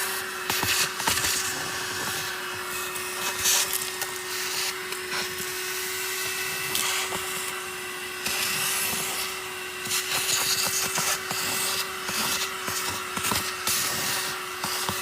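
Handheld 120W 12-volt car vacuum cleaner running steadily with a constant motor whine and rushing airflow, broken by irregular crackling and rattling.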